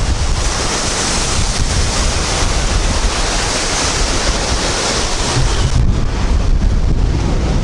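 Rough Baltic Sea surf breaking and washing against a seawall and wooden groynes, with strong wind rumbling on the microphone.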